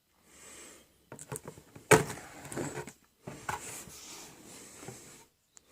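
A cardboard box being cut open along its sellotape with a knife and handled: irregular scraping and rustling of cardboard, with one sharp knock about two seconds in.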